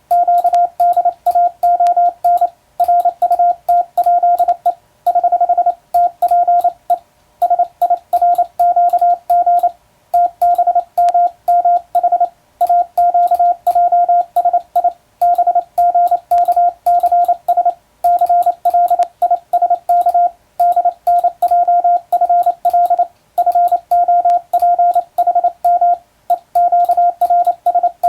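Morse code sent by hand on a telegraph key, heard as a single mid-pitched beep tone switched on and off in quick dots and dashes. It runs in groups with short pauses between them, and each element starts and ends with a faint click.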